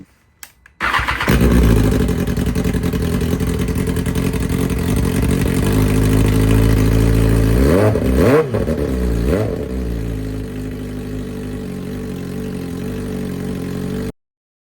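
BMW S1000RR inline-four engine breathing through a slip-on exhaust starts about a second in and settles into a steady idle. It is blipped three times in quick succession around the middle, then idles again.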